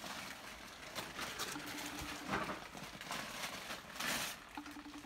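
Christmas wrapping paper rustling and crinkling as presents are unwrapped, with a few louder rips about a second, two seconds and four seconds in.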